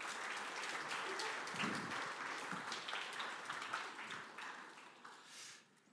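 A congregation applauding, a dense patter of many hands clapping that thins out and dies away about five seconds in.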